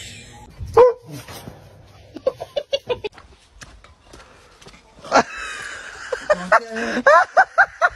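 A run of short, repeated pitched calls, about four a second, starting about five seconds in, after a few scattered calls earlier.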